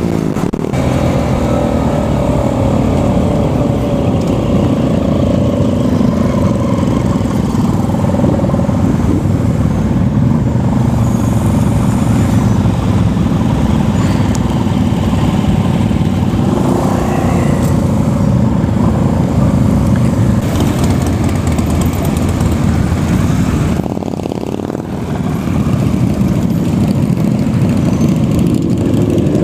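Motorcycle engines heard from the rider's seat, mixed with wind noise on a helmet camera: the rider's own bike slows at the start, its engine note dropping, then runs among a pack of other motorcycles.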